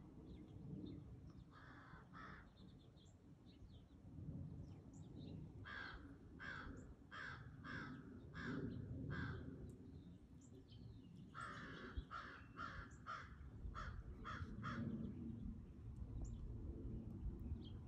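A bird calling repeatedly in the trees: a pair of calls about two seconds in, then two runs of about six calls each, roughly two a second.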